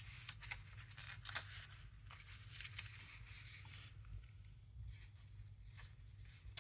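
Paper and cardstock being handled on a craft table: faint rustles and small clicks and taps as cards are moved and placed, over a steady low hum.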